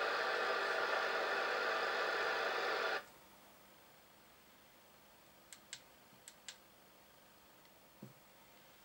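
FM CB radio receiver hiss from the Albrecht AE6199's speaker, squelch open on an empty channel. The hiss is steady for about three seconds, then cuts off suddenly as the squelch closes. After that come four faint sharp clicks of its front-panel buttons being pressed, and a soft knock near the end.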